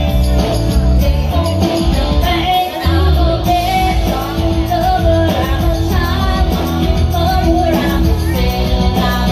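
A woman singing into a microphone over loud amplified backing music with a heavy, steady bass line.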